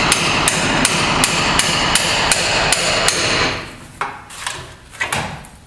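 Hand hammer beating on the front shock absorber's lower end to knock the shock free of the truck's axle. About ten quick, even blows come in the first three and a half seconds, then a few lighter, scattered knocks.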